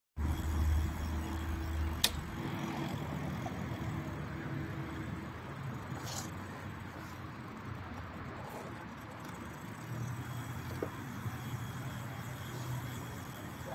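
Street traffic: a motor vehicle's engine hum, loudest in the first two seconds and fading over the next few, with a sharp click about two seconds in and a weaker engine hum again near the end over steady street noise.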